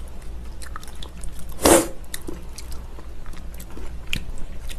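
Close-miked small clicks and crinkles as broth is poured from a paper pouch into a stainless-steel bowl of sauce-coated spicy noodles and the noodles are worked with chopsticks, with one louder, noisy burst about two seconds in.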